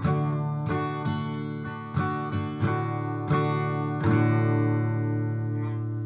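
Acoustic guitar strummed in a closing run of chords, with a last chord struck about four seconds in and left ringing as it slowly fades.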